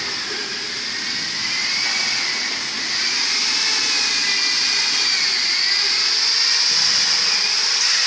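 Electric power tool running continuously in a metalworking shop. Its high whine wavers, dipping and recovering in pitch several times, and the noise gets a little louder about three seconds in.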